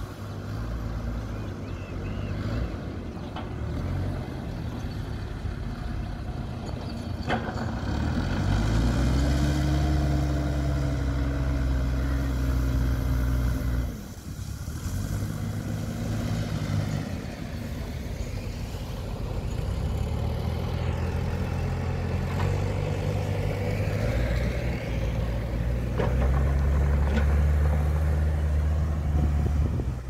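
Heavy construction machinery's diesel engine running and revving up under load, rising about eight seconds in, holding loud, then dropping away suddenly around the middle before building up again and running loudest near the end. A couple of sharp clanks stand out above it.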